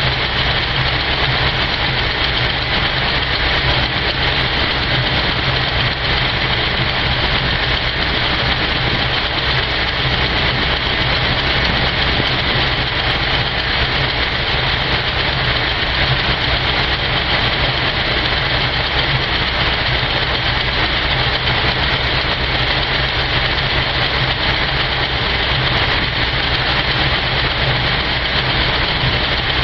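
A General Motors car's engine idling steadily off the choke as it warms up after a cold start from months of sitting.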